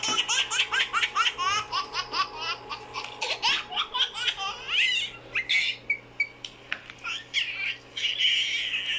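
A child laughing hard in a fast run of short, rising laughs for about the first five seconds, then fewer, breathier laughs.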